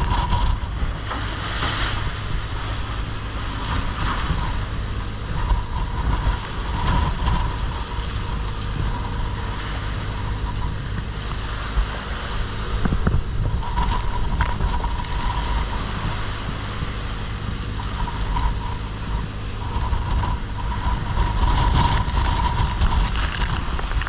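Storm wind buffeting the microphone and heavy seas breaking around a steel longline fishing vessel, over the steady low hum of the boat's engine, with a faint whistle that comes and goes.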